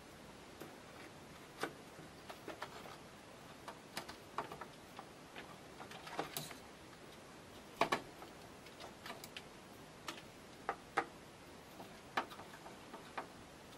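Scattered light clicks and taps as DDR3 memory modules are handled and lined up in a desktop motherboard's memory slots, irregular and faint, with one sharper click about eight seconds in.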